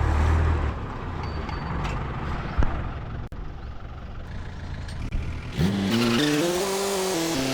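Tractor engine running while a trolley load of sand is unloaded, with a steady rushing noise through the middle. About five and a half seconds in, the engine revs up, holds, and eases back off near the end.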